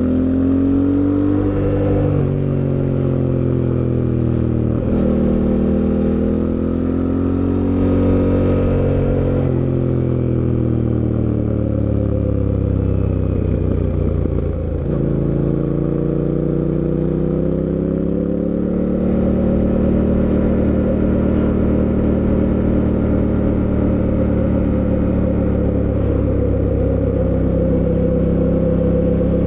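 A 2024 Fantic Caballero 700 Scrambler's parallel-twin engine running under the rider. It revs up through the gears with short drops in pitch at each shift, then slows for several seconds, pulls up again and settles into a steady cruise, with one more shift near the end.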